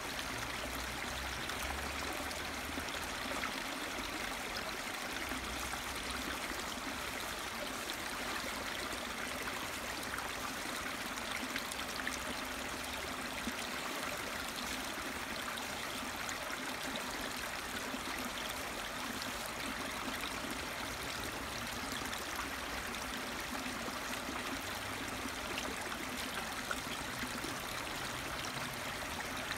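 A small woodland stream running steadily, a constant splashing and trickling of water over rocks.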